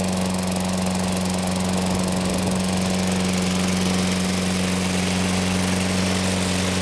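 Toro walk-behind mower's 6.5 hp Tecumseh single-cylinder engine running steadily after a cold start, freshly running again after its carburetor was cleaned.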